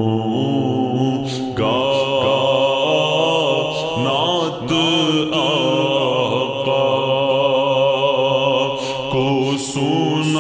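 Naat sung in Urdu, a voice holding long, wavering, melismatic notes over a steady drone.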